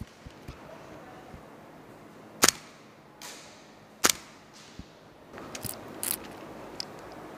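Two single shots from an HPA-powered airsoft rifle, sharp pops about a second and a half apart. A few fainter clicks and pops follow near the end.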